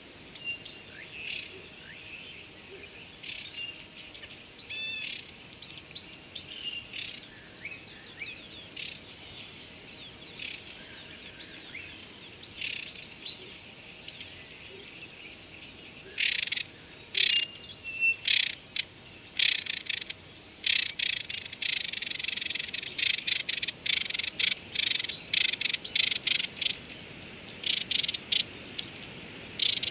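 A steady high-pitched insect drone with a few chirping bird calls in the first seconds. From about halfway, an animal starts a run of short rasping calls, about two a second, which become the loudest sound.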